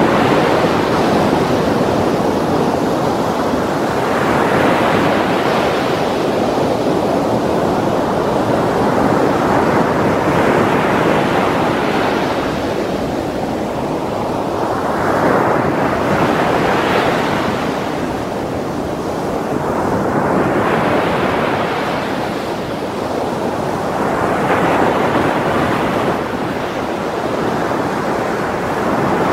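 Heavy ocean surf: large swells breaking and foaming white water surging over a black pebble shore. It is a continuous loud rush that swells every four or five seconds as each wave breaks.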